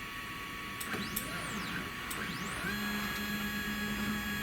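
Stepper motors of a 3018 benchtop CNC router jogging an axis. The whine rises and falls in pitch as a short move speeds up and slows down about a second in. A second move rises into a steady whine about two and a half seconds in.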